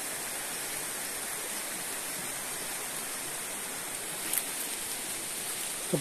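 Shallow forest creek running over rocks, a steady rush of moving water.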